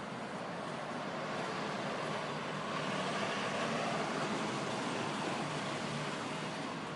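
A road vehicle passing by on the street, its tyre and engine noise swelling to a peak about halfway through and then fading.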